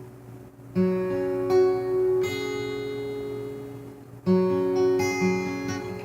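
Dove-model acoustic guitar being strummed: a chord is struck about a second in and another about four seconds in, each left to ring and fade.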